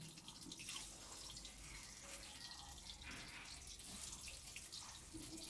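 Faint sizzling and spattering of oil in an aluminium kadai as turmeric- and salt-coated boiled eggs go into it to fry, with scattered small pops.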